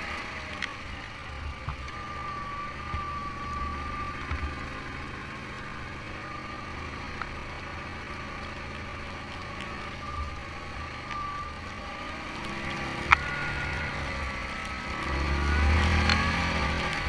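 Yamaha Grizzly 700 ATV's single-cylinder engine running as the quad is ridden over a dirt trail, with a wavering whine over the engine and a few sharp knocks, the loudest about two-thirds of the way through. The engine gets louder near the end as the quad climbs a slope.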